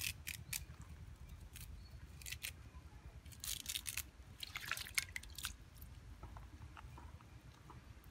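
Fresh curry leaves being stripped by hand from their stems: a run of short crisp rustles and crackles in the first half, thinning to a few faint ticks near the end.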